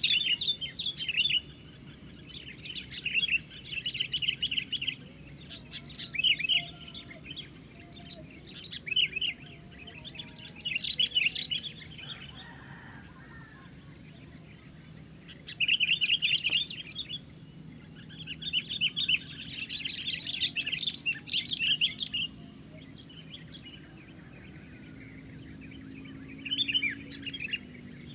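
Sooty-headed bulbuls calling in short bubbly chattering phrases of a second or two, repeated every few seconds, with longer, louder runs near the middle.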